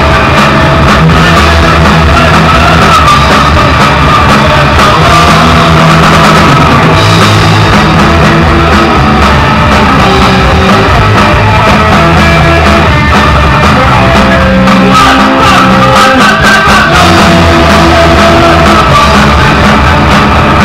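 Hardcore punk band playing live at full volume: electric guitars, bass and a drum kit with crashing cymbals, a dense, steady wall of sound.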